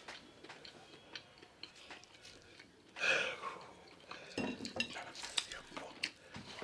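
Eating sounds at a shared meal: scattered light clicks and clinks of cutlery against dishes, with a brief louder sound about three seconds in and a busier run of clicks after it.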